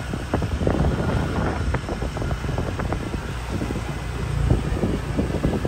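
Wind buffeting the microphone over the running engine of a moving motorbike.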